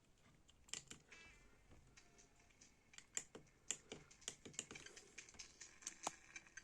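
Irregular light clicks and taps, several a second, in quick uneven runs like typing.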